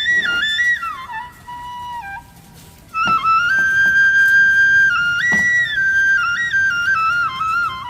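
Background music: a solo flute playing a slow melody that moves in steps between held notes, dropping away briefly about two seconds in before coming back fuller.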